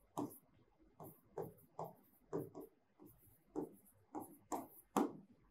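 Pen strokes on an interactive touchscreen board: about ten short, separate taps and scratches as a word is written.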